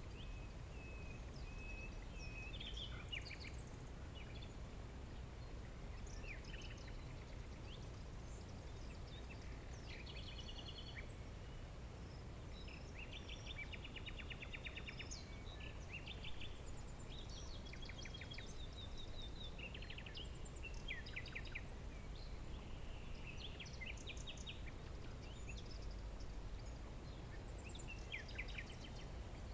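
Several songbirds chirping, with fast trills of short repeated notes, over a steady low background rumble.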